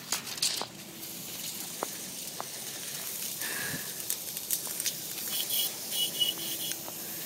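Footsteps rustling and crunching through dry, dead grass, with scattered light clicks of handling noise.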